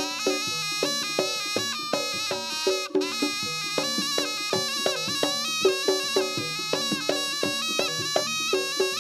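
Jaranan Senterewe accompaniment: a slompret (reed shawm) plays a continuous, wavering melody over a steady pattern of pitched gong-chime and drum strokes, about three a second. There is a brief drop just before the three-second mark.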